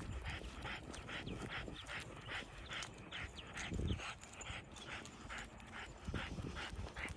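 French bulldog panting in quick, even breaths, about two or three a second, with a couple of low thumps.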